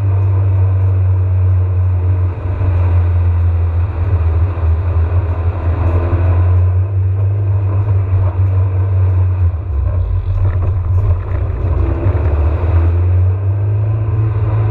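Car driving, heard from inside the cabin: a steady low drone of engine and road noise.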